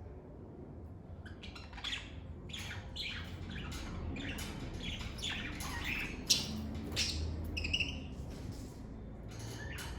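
Lovebirds chirping in a rapid run of short, high calls that start a little over a second in and thin out near the end, over a faint low hum.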